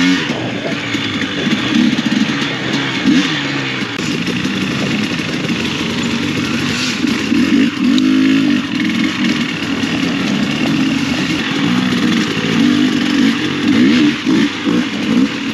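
Husqvarna off-road dirt bike engine being ridden hard along a rough trail, its pitch rising and falling again and again as the throttle is opened and shut, heard close from the rider's seat.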